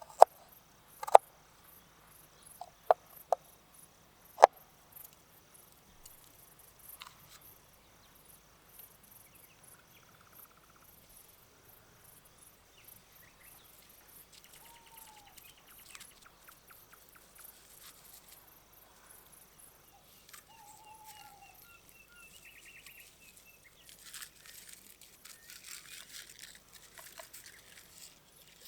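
Crickets chirping steadily in a continuous pulsing high trill. Four sharp knocks come in the first few seconds, and a bird gives two short, falling calls later on. Near the end there is a noisier, rustling stretch.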